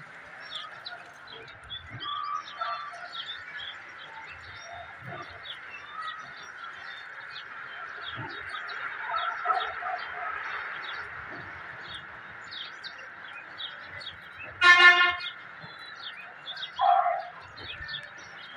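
Small birds chirping again and again over a steady hiss, with one short, loud honk-like note about fifteen seconds in.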